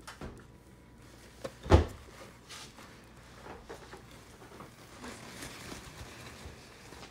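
Handling noises from wiping ink out of an Epson 8550 printer's print-head area with paper towel: soft rubbing and scattered light plastic clicks, with one sharp knock about two seconds in.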